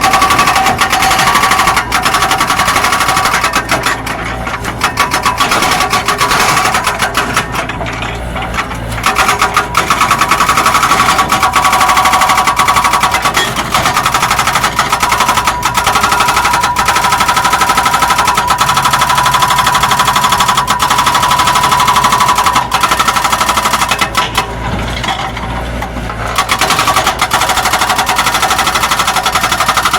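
Zoomlion excavator's diesel engine and hydraulics working under load, a rapid clatter with a steady whine that strengthens through the middle and eases off briefly a few times.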